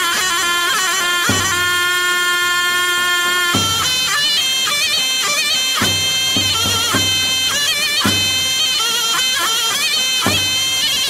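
Folk music led by a loud reed wind instrument playing a continuous, ornamented melody with no breaks for breath and sliding, wavering pitch. Short low notes come and go underneath it.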